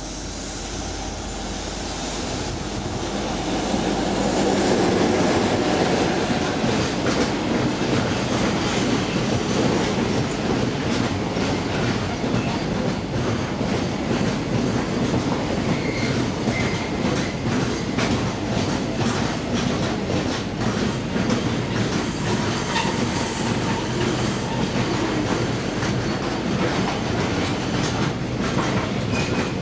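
EF66 electric locomotive hauling a long container freight train past: the rumble builds as the locomotive approaches and goes by about five seconds in. The container wagons then clatter steadily over the rail joints with a continuous run of wheel clicks.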